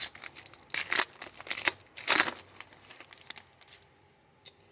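Wrapper of a trading-card pack being torn open and crinkled by hand, in a few short rustling bursts that stop near the end.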